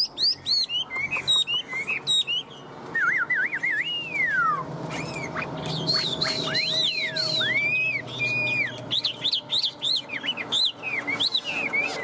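Chinese hwamei singing a loud, varied song. It opens with a fast run of sharp sliding whistles, drops to a lower warbled phrase ending in a long downward slide about four seconds in, then continues with repeated rising-and-falling whistled notes.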